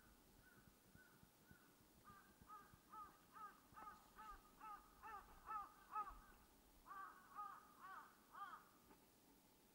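Crow cawing in a long series of repeated calls, about two a second, faint at first and then clear, with a short break partway through before a second run.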